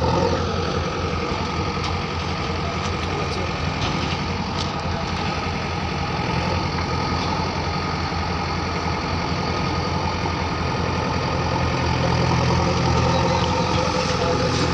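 Diesel engine of heavy machinery idling steadily, a low even drone, with a few faint clicks about four seconds in.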